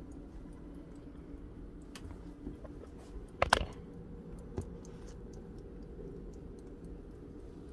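Light clicks and a short clatter about three and a half seconds in, typical of close handling around wire racks, over a steady low hum.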